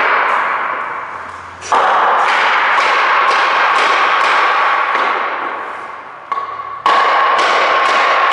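Repeated knocks while fastening subfloor sheets, about two or three a second, over a steady ringing noise. Sharp, sudden starts about two seconds in and again near the end.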